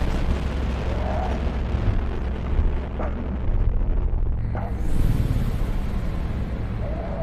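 Dark, heavily distorted drone music: a dense, steady low rumble with noise over it, and a brief rising-and-falling tone about a second in and again near the end.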